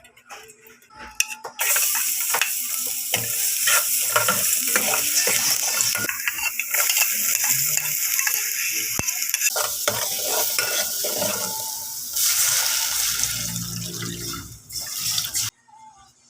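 Food sizzling in hot oil in a pan, with a utensil stirring and clinking against the pan. The sizzle starts suddenly about two seconds in and cuts off suddenly near the end.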